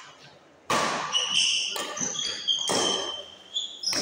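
Badminton rally: sharp racket hits on the shuttlecock, four of them about a second apart, each ringing briefly in the hall, with high squeaks of shoes on the court floor between them.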